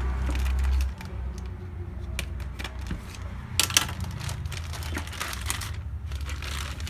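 Plastic anti-static bag crinkling and crackling as a motherboard inside it is handled and lifted out, with scattered sharp crackles and a louder burst of crinkling about three and a half seconds in, over a steady low hum.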